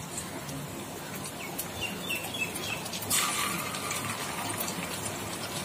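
Pieces of carrot-and-potato kurkure dough deep-frying in hot oil, sizzling and crackling steadily; the sizzle grows louder about three seconds in as another piece is dropped into the oil.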